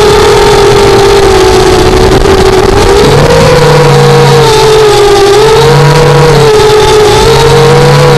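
FPV quadcopter's motors whining in forward flight, the pitch rising and falling gently with the throttle, over a steady hiss.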